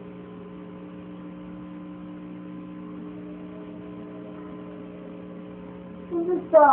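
A steady hum made of several held tones, one of them changing about halfway through; a voice breaks in briefly near the end.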